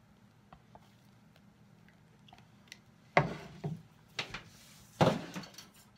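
Faint taps of a spoon working egg-white foam, then loud knocks and clattering of kitchen utensils being handled, three times, about three, four and five seconds in, as a spatula is fetched.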